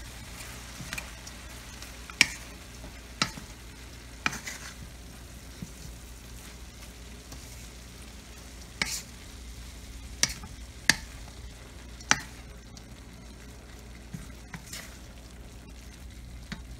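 Wooden spatula stirring and tossing shredded cabbage and carrots with ground pork in a wok over a steady frying sizzle, with sharp knocks of the spatula against the pan every second or two.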